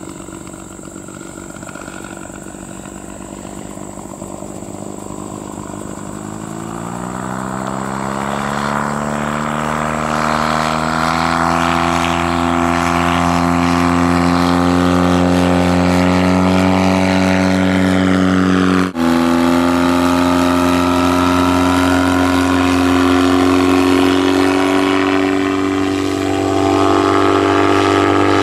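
Two-stroke McCulloch engine and pusher propeller of a Bensen gyrocopter in flight, fitted with custom mufflers. Its drone is faint at first, then grows loud and climbs in pitch over several seconds and holds steady, with a sudden short break about two-thirds of the way through.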